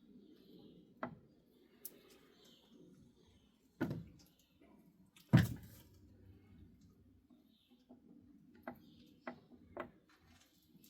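Scattered metal knocks and clunks from hands working the gear selector of a 1968 Kerry AG mk2 lathe. The loudest is a heavy thump about five seconds in, followed by a few light clicks near the end.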